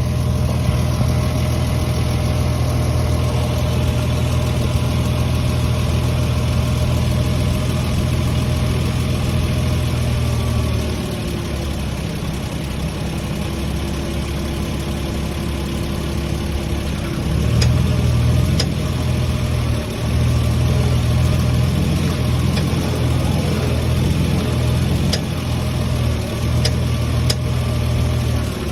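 Lexus IS300 engine running steadily. The low engine note drops back about 11 seconds in and comes back unevenly about 17 seconds in. A few faint sharp pops sound in the second half: the popping noise whose cause the owner does not know.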